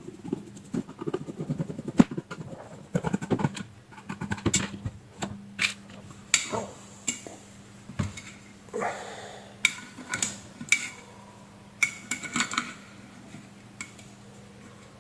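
Plastic and metal parts of an electric kettle and multimeter probes being handled on a workbench: scattered clicks, light knocks and short clattery scrapes, over a faint steady hum.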